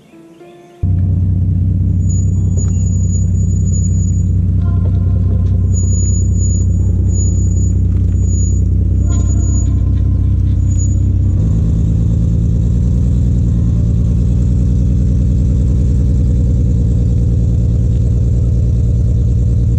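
SUV engine running close by, loud and steady, its pitch shifting about eleven seconds in as it pulls the empty boat trailer up the launch ramp.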